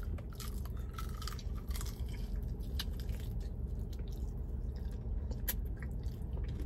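Close-miked chewing and biting of chicken wings: scattered small clicks and crackles of mouth and food, with one sharper click about five and a half seconds in.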